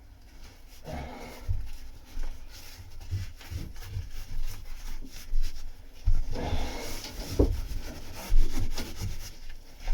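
Irregular rubbing and scuffing with soft thumps as fibreglass cloth is pressed and worked up against the underside of a boat deck, getting busier and louder about six seconds in.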